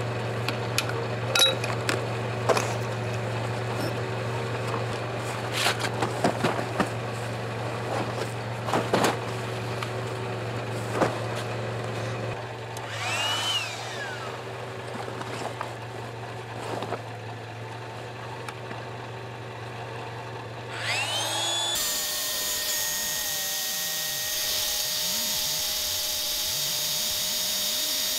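Inflatable kayak's vinyl hull being unpacked and spread out, with scattered knocks and rustles over a steady low hum. About 22 seconds in an electric air pump starts and runs steadily with a high whine, inflating the kayak.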